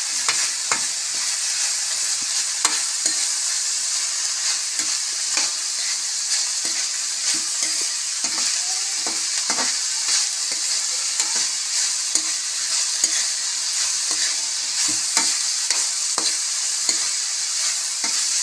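Cut green beans sizzling in hot oil in a metal wok while a metal spatula stirs them, with frequent irregular clinks and scrapes of the spatula against the pan over a steady sizzle.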